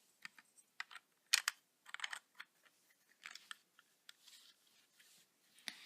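Irregular small clicks and brief rustles of hands handling a plastic Rainbow Loom, its hook and rubber bands.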